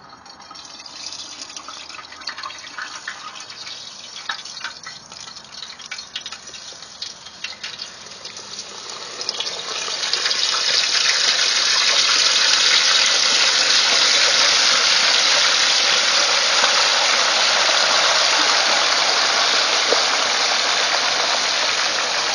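Hot frying oil crackling and spitting as a whole turkey is lowered slowly into the fryer pot. About ten seconds in, as the bird goes under, it turns into a loud, steady sizzling boil.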